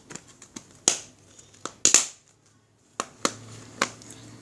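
Plastic slime packs being handled: a series of sharp clicks and crackles, the loudest about one and two seconds in, with two more clicks near the end.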